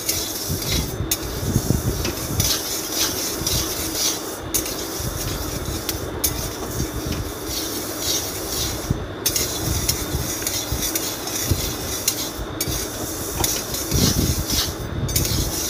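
Moong dal roasting in a steel pan, stirred with a metal spatula: the spatula scraping the pan and the dry lentils rustling, with a few brief breaks between strokes.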